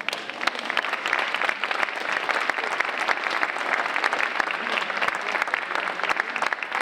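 Audience of schoolchildren clapping: dense, steady applause that breaks out all at once.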